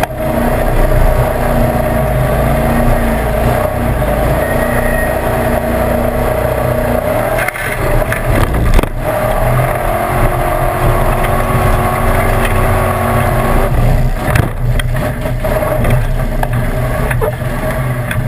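Formula Offroad competition vehicle's engine running under load, heard from inside the open roll-cage cockpit, steady for the first seven seconds and then changing pitch. A few sharp knocks come about halfway through and again near the three-quarter mark.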